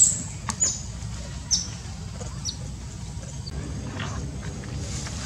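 A few short, high-pitched chirps, each dropping in pitch, the loudest right at the start and the last about three and a half seconds in, over a steady low rumble.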